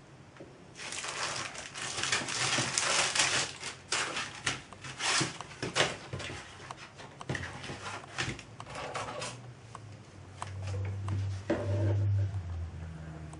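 Clear plastic packaging bag crinkling and rustling as a silicone baking mat is pulled out of it, densest in the first six seconds. Scattered clicks and taps follow as the floppy mat is handled on the bench, then a brief low hum, and near the end scissors start cutting into the mat.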